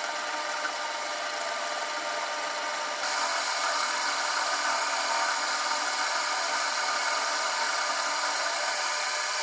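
Metal lathe running while its cutting tool takes a deep rough facing pass across the end of a lubricated aluminium bar: a steady machining noise with a faint whine, which gets a little louder about three seconds in.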